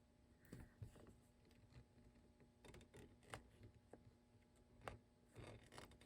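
Near silence with a low steady hum and a few faint, scattered clicks and rustles of the fabric and machine being handled; the sewing machine is not stitching.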